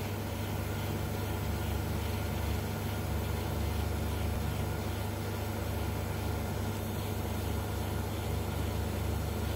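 Steady low electrical hum with a hiss over it, from the high-voltage flyback transformer and NE555/MOSFET driver running a neon-argon gas discharge tube.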